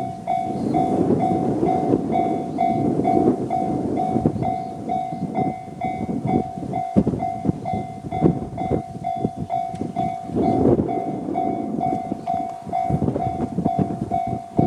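A Japanese level-crossing warning bell ringing in the JR standard electronic tone, an even pulsing ding about three times a second, over a loud, uneven low rumble.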